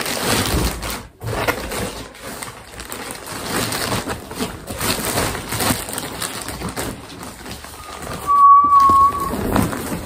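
Plastic courier mailer bag crinkling and rustling as it is pulled open and a box is drawn out of it. About eight seconds in, a clear high whistle-like tone holds for just over a second.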